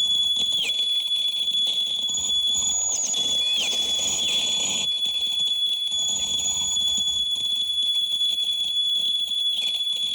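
Electronic noise music: two steady high tones over a continuous hiss, with several short falling swoops about one to five seconds in.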